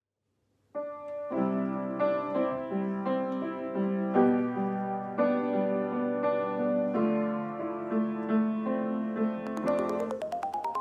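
Piano playing slow sustained chords, changing about once a second, starting about a second in. Near the end a rapid run of short tones begins, climbing step by step in pitch over the fading chord.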